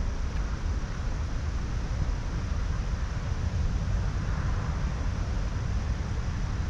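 Wind buffeting the microphone: a steady, fluttering low rumble with a fainter hiss above it.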